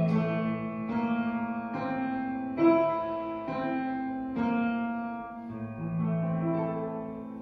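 Keyboard playing a slow closing run of struck chords, about one a second, dying away near the end.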